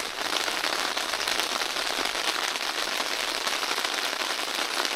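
Steady heavy rain drumming on a tent, a dense run of fine drop ticks with no thunder heard.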